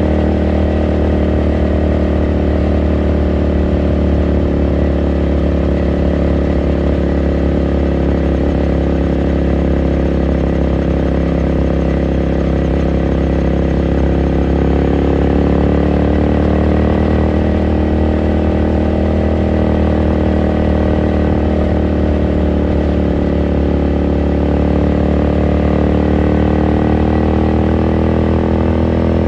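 2018 Ducati Scrambler Sixty2's 399 cc air-cooled L-twin running steadily while riding, its note dipping a little about halfway through and climbing back.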